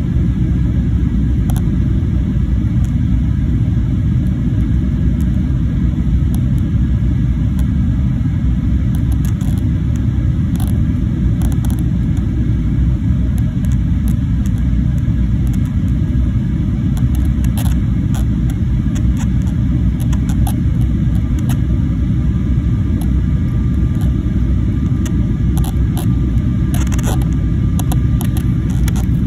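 Steady low rumble of a Finnair jet airliner's cabin in descent, engine and airflow noise heard from a window seat, with a few faint ticks now and then.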